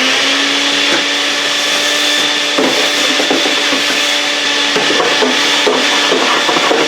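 Vacuum cleaner running steadily, a constant motor whine, with irregular crackles of leaves and grit being sucked up from about two and a half seconds in.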